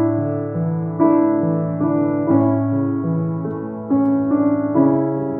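Grand piano played solo: sustained chords over held bass notes, changing about once a second.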